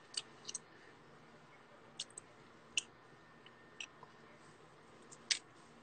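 A person chewing and biting something at the mouth: a handful of short, wet mouth clicks and smacks, about six spread out, the loudest near the end.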